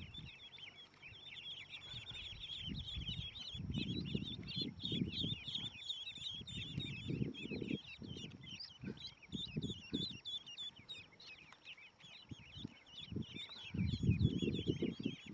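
Many newly hatched ducklings peeping rapidly and continuously in high, short chirps. Bursts of low rustling and bumping from handling come and go, strongest in the middle and near the end.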